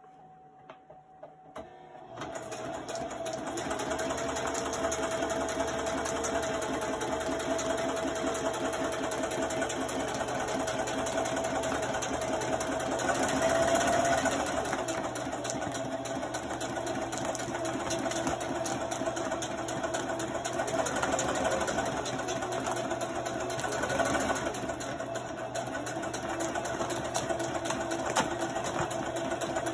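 Sewing machine starting up about two seconds in, after a few faint clicks, then stitching steadily at speed through the folded top hem of a feed sack.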